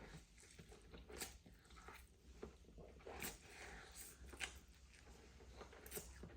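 Faint mouth sounds of a man chewing a large mouthful of Buldak hot and spicy stir-fried noodles: soft wet smacks and clicks, a few sharper ones spaced a second or two apart.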